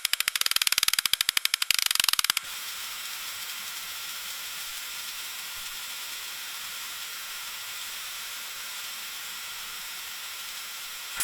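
Freezing rain ticking on window glass: rapid, dense clicking for about two seconds, which stops suddenly. A steady high hiss follows for the rest.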